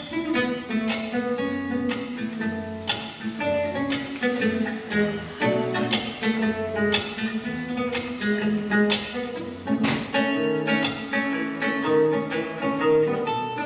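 Solo classical guitar played fingerstyle: a steady flow of plucked melody and bass notes, with a few sharp strummed strokes, the strongest about ten seconds in.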